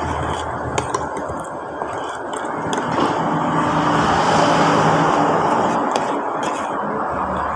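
Road traffic noise with a vehicle's low hum passing, and a few light clinks of a spoon and fork against a plate.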